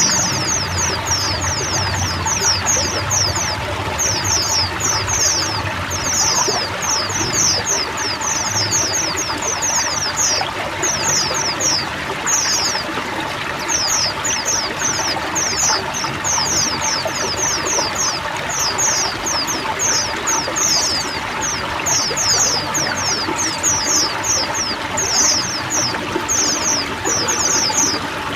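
Several white-eyes singing together in dense, rapid runs of short, high, falling twittering notes, over a steady trickle of running water.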